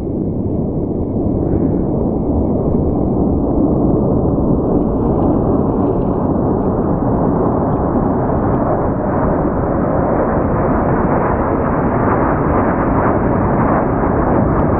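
Loud rumbling jet engine noise from aircraft passing overhead, building over the first few seconds and then holding steady.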